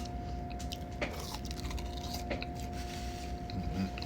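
A person chewing a mouthful of sandwich, with a few soft mouth clicks and smacks, over a steady low hum and a faint steady tone.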